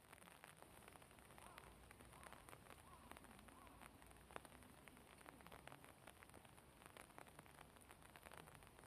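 Near silence: faint outdoor ambience with a light hiss and scattered soft clicks and crackles.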